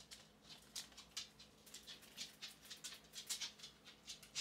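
Small steel needle roller bearings clicking against one another and against fingertips as they are picked through and handled, an irregular run of light, sharp clicks, about four or five a second.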